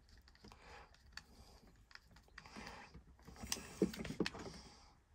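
Faint clicks and scrapes of a screwdriver tightening the earth terminal screw on a plastic 13 A plug socket while the wires and socket are handled. A louder cluster of clicks and knocks comes about three and a half seconds in.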